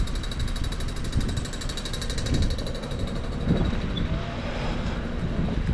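Town street sound: a low rumble with a fast, even, high-pitched ticking that fades out about three seconds in.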